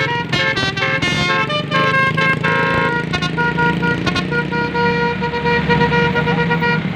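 Basuri telolet multi-tone bus horn with roof-mounted trumpets, played as a tune: a run of quick short notes, then longer held notes from about three seconds in, over the running bus engine. It is loud throughout.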